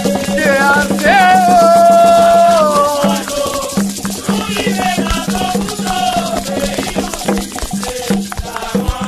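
Haitian Vodou song: a voice singing long notes that slide up and down, over a rattle shaken steadily throughout and a constant low tone.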